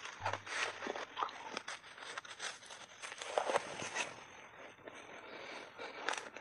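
Refrozen shaved ice being bitten and chewed in big mouthfuls close to a clip-on microphone: a quick, irregular run of crunches.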